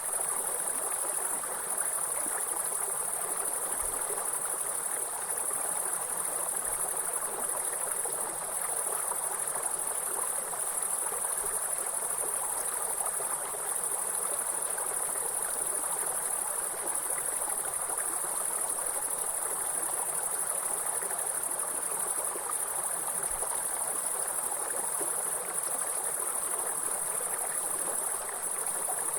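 Steady, unbroken high-pitched chirring of insects over the even rush of a running stream.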